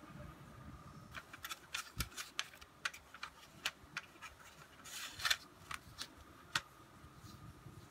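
Irregular sharp clicks and taps of a plastic CD jewel case being handled, with a denser cluster of clicks around the middle, over a faint steady high whine.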